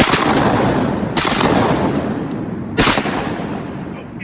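Three shotgun blasts, at the start, about a second in and near three seconds, each followed by a long rolling echo that fades out.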